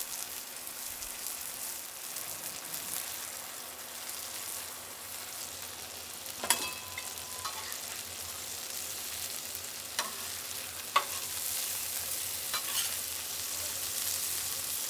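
Chicken breasts frying in ghee on a flat-top griddle: a steady sizzling hiss. A few sharp clicks break into it, about halfway through and twice more a few seconds later.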